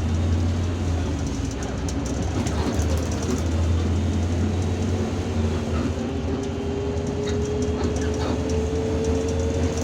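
Irisbus Citelis 12M city bus under way, heard from inside the cabin: a steady low engine drone with road rumble, and a whine that rises slowly in pitch over the second half.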